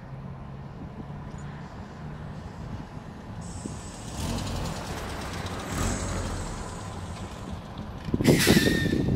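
A trolleybus running past with a steady high whine and tyre noise. Near the end comes a short, loud hiss of its air brakes.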